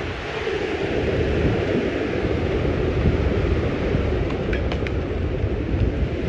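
Hurricane wind gusting with driving rain, the wind buffeting the microphone in a loud, steady rumble. A few faint clicks a little past the middle.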